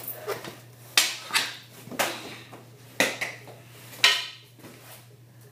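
Hockey stick blade and puck clacking on a concrete floor during stickhandling and shots: sharp knocks about once a second, a few lighter taps between them.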